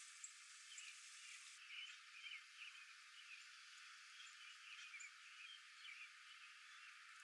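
Faint outdoor nature ambience: a steady hiss with many short chirping animal calls repeating throughout, frog-like.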